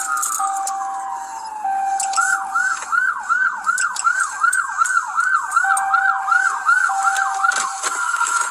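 Police car siren: a slow falling wail over the first second or so, then a fast yelp sweeping up and down about three times a second for about five seconds, settling to a steady high tone near the end. A lower steady tone sounds on and off beneath it.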